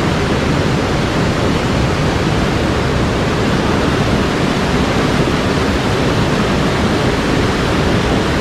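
Steady, loud rush of a mountain stream's water, the stream running high.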